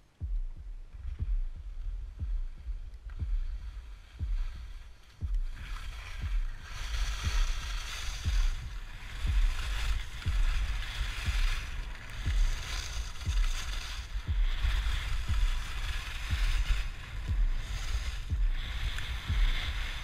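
Wind buffeting a GoPro microphone in irregular low thumps, with the hiss and scrape of skis on hard snow that grows louder about five to six seconds in as the skier picks up speed.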